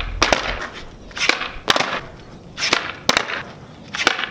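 Skateboard on concrete during kickflip attempts: several sharp clacks of the tail popping and the board and wheels slapping down, each followed by a short rush of wheels rolling.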